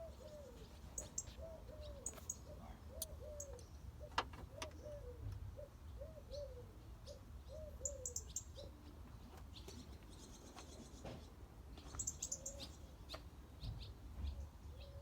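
Birds calling: a short call repeated about twice a second, with high chirps over it, a few sharp clicks (the loudest about four seconds in) and a steady low rumble underneath.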